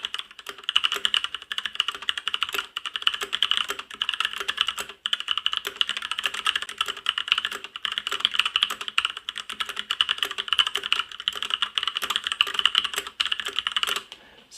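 Continuous typing on a mechanical keyboard with brown (tactile) switches: a fast, uneven run of keystroke clacks with a pronounced click. There is a short pause about five seconds in, and the typing stops just before the end.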